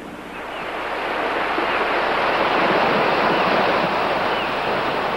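Surf breaking on a rocky shore: a steady rush of waves that swells up over the first two seconds and then holds.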